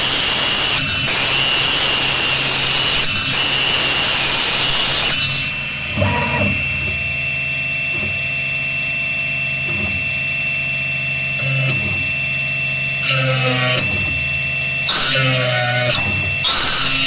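Ghost Gunner 3 desktop CNC mill drilling the trigger and hammer pin holes in an aluminium AR-15 lower receiver, its spindle giving a steady high whine. A loud hiss of the bit cutting runs for about the first five seconds, then the machine runs quieter, broken by several short bursts of louder noise.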